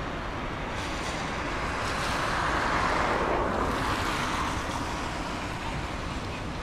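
Rushing floodwater churning over a weir and along the bank, a steady rush that swells from about two seconds in and eases after about four and a half. Wind buffets the microphone underneath.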